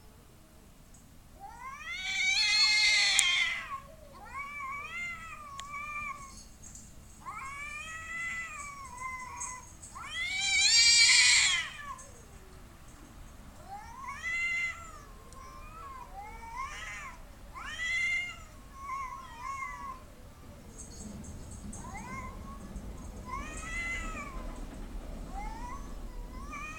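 Two cats caterwauling at each other in a fight standoff: a run of long, wavering yowls rising and falling in pitch. Two much louder, shriller screams come about two seconds in and again about ten seconds in.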